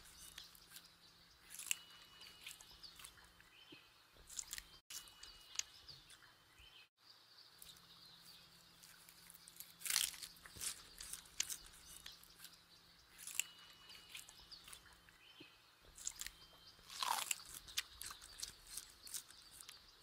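Giant panda chewing bamboo, the sound effect of Google's 3D AR panda: irregular crisp crunches and bites, the same run of chewing sounds coming round again about every twelve seconds as the effect loops.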